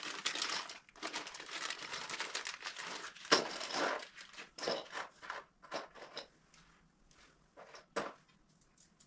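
Hands crinkling and rustling plastic packaging around installation parts, dense for the first few seconds and then thinning to scattered light clicks and taps, with a sharp tap about three seconds in and another near the end.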